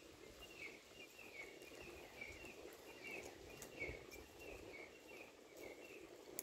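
Faint outdoor ambience with a continuous run of short high chirps and a soft thump about four seconds in.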